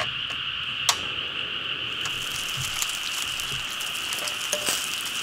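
A small stainless steel pot clinks twice as it is set down on a portable gas burner, against a steady high-pitched chorus of night creatures. From about two seconds in, a crackling hiss of water boiling in the pot joins the chorus.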